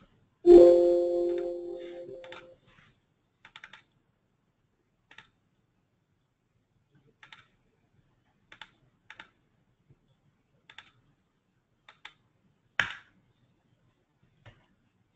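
A computer alert chime sounds about half a second in and dies away over about two seconds. It is followed by scattered computer mouse and keyboard clicks, with one louder click near the end.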